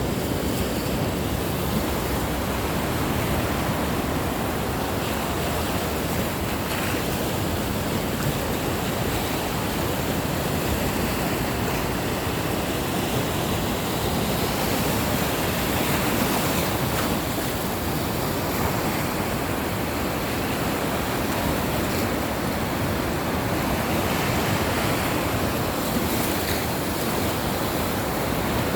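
Caspian Sea waves washing on the shore, a steady rush of surf.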